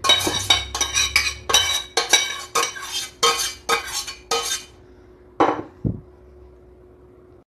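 Metal spoon scraping and knocking inside a stainless-steel saucepan to get out the last of the tomato sauce, about a dozen quick scrapes, two or three a second. Two more knocks follow about a second after the scraping stops.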